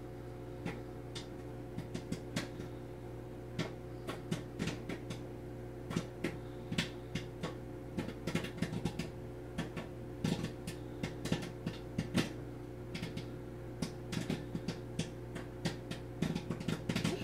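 Popcorn popping inside a running microwave oven: irregular sharp pops over the oven's steady hum. The pops are sparse at first and come much more often after the first few seconds.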